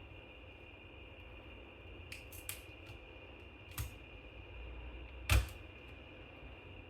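Light clicks and snaps of a cover over the RAM slots inside an MSI Stealth 16 Studio laptop being pried up by hand: a few clicks about two seconds in, another near four seconds, and a louder snap a little after five seconds.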